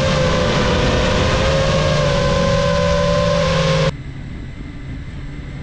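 Motors and three-blade propellers of a GEPRC Mark5 5-inch FPV quadcopter running with a steady whine. It cuts off abruptly about four seconds in, leaving a quieter hiss.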